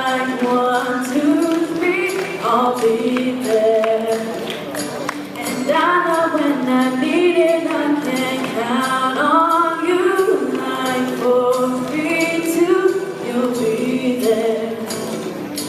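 A song sung by several voices with instrumental backing, a choir-like sound with a light percussive tick.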